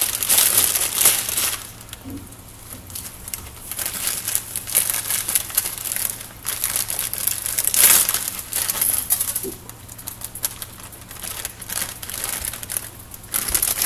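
Ramen noodle wrapper crinkling and rustling as it is handled and shaken out over the pot, in irregular spells, loudest in the first second or so and again about eight seconds in, over a faint steady low hum.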